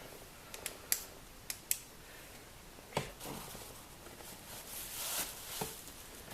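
Faint clicks and a few soft knocks from hands working at a car's plastic glove box to pull it free. There are several light clicks in the first two seconds, a sharper knock about three seconds in, then a brief rustle and a dull thump near the end.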